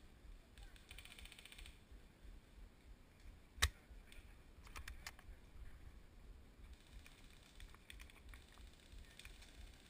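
Scattered sharp clicks from airsoft guns firing. The loudest is a single snap about three and a half seconds in, with a few fainter clicks after it.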